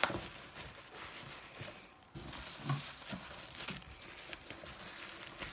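Crinkling and rustling of a bag being handled close to the microphone, with scattered light clicks and knocks.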